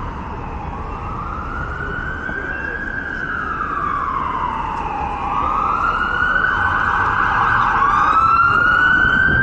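Emergency vehicle siren wailing, its pitch rising and falling slowly over several seconds; a second siren tone joins about halfway, and the sirens grow louder as they approach. Low traffic rumble underneath.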